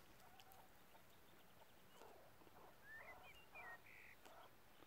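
Chukar partridge calling faintly: a short run of harsh clucks in the second half, with a few high chirps from small birds.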